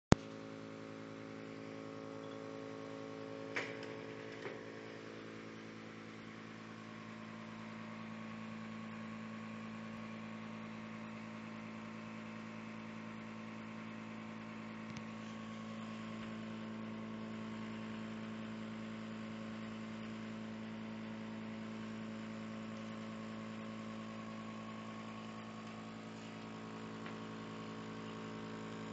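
Enolmatic wine-bottle filler's vacuum pump running with a steady hum. Two clicks come about a second apart, some four seconds in.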